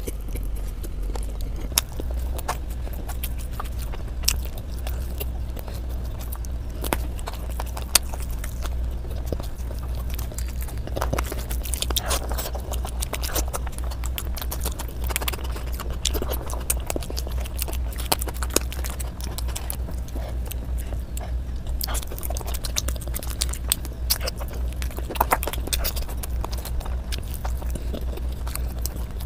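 Close-miked chewing and biting of spicy fried chicken and curried rice eaten by hand, with wet mouth sounds and many sharp clicks, over a steady low hum.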